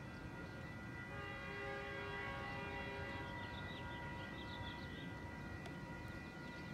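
Distant locomotive horn sounding a long chord of several steady notes as a commuter train approaches, with a few short bird chirps about halfway through.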